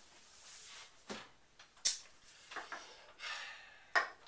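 Tabletop handling sounds: a few knocks and soft rubbing as a large hardcover book is slid across a table and a magnifying glass is set down, with the loudest knock near the end.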